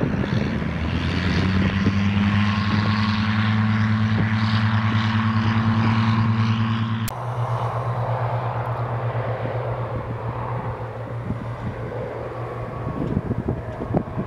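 Two Boeing MH-47G Chinook tandem-rotor helicopters flying overhead on approach: a steady low hum chopped by the fast beat of their rotor blades. About halfway through the sound drops suddenly and thins out, then carries on at a lower level.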